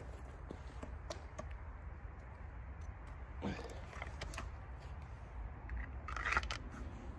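Machete strokes trimming twigs off a dead branch held in the hand, with twigs cracking and snapping: a few light clicks in the first second and a half, a cluster of strikes about three and a half to four and a half seconds in, and the loudest crackle of snapping twigs a little after six seconds. A low steady rumble runs underneath.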